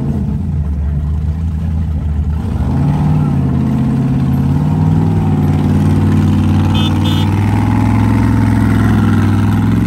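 A vehicle engine running steadily. About two and a half seconds in, it rises in pitch and gets louder, then holds at the higher speed.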